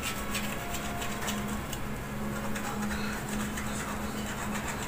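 Scratching the coating off a Go Bananas scratch-off lottery ticket, in faint short scrapes, over a low hum that keeps breaking off and starting again.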